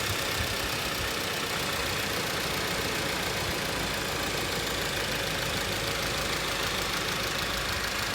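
2018 Volkswagen Tiguan Allspace engine idling steadily with a fast, even ticking rattle, which the owner puts down to a rattling fuel rail.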